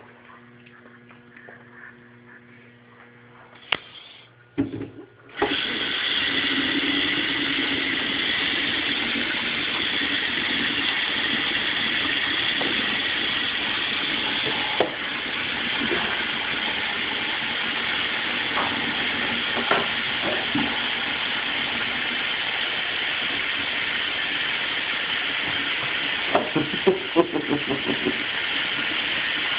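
Bathroom sink tap turned on after a couple of clicks about five seconds in, then water running steadily into the basin as a loud even hiss. A short flurry of brief sounds comes near the end.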